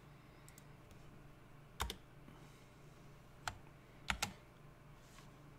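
A few separate sharp clicks of a computer keyboard and mouse, spread out over several seconds with two close together about four seconds in, over a faint low steady hum.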